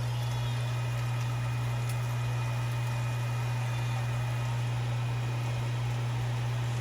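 A steady, unchanging low hum, like a motor or appliance running, with a faint hiss over it.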